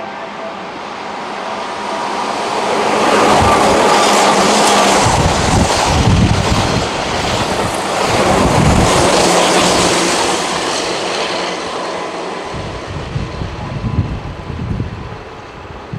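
Keihan 8000-series electric train running through a station at speed without stopping: it grows louder over a few seconds, holds loud for about eight seconds as the cars rush by with wheel clatter over the rail joints, then fades away.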